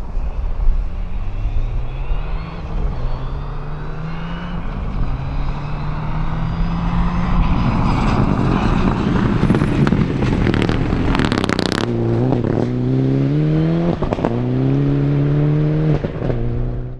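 Mitsubishi Lancer Evo rally car's turbocharged four-cylinder engine accelerating hard toward and past on a gravel stage, its pitch climbing in steps through several gear changes. As it passes close, thrown gravel gives a burst of sharp rattling and scraping. Then the revs rise and fall with a few cracks from the exhaust as it drives away.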